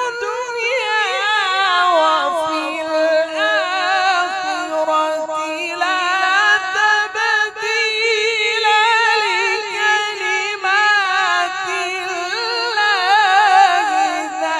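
A man reciting the Quran in the melodic tajwid style, drawing out long ornamented notes with a wavering, trilling pitch, amplified through a microphone.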